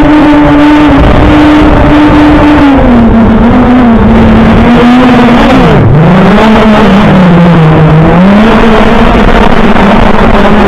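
OVERMAX X-Bee Drone 8.0 quadcopter's motors and propellers buzzing loudly as picked up by its onboard camera microphone, over a steady rush of wind noise. The pitch steps down about a quarter of the way in, dips sharply just past halfway and sags again soon after as the motor speed changes.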